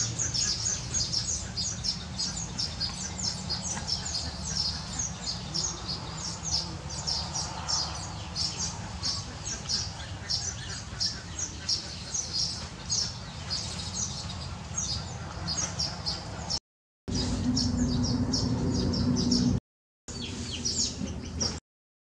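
A colony of baya weavers chattering: a dense, continuous run of rapid, high chirps over a steady low rumble. The sound cuts out briefly three times near the end.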